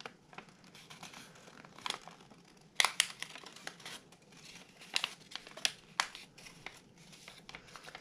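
Sheet of origami paper crinkling and crackling in short, scattered bursts as it is opened out and its crease reversed into a reverse fold. The loudest crackle comes about three seconds in.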